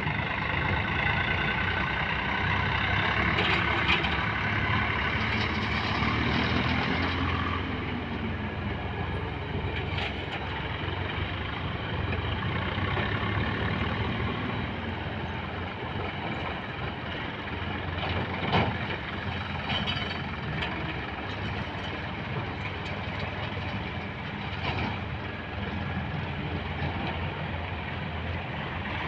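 Heavy diesel engine of earth-moving machinery running steadily under load, with a few sharp clanks, the loudest about two-thirds of the way through.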